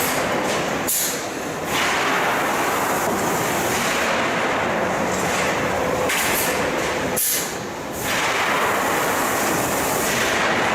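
Steel-coil cut-to-length line running: steady, loud machine noise. Twice, about six seconds apart, a short high-pitched burst is followed by a brief drop in the noise.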